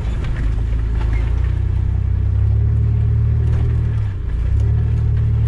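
Off-road 4x4's engine running steadily under way. The engine note dips briefly about four seconds in, then picks up again.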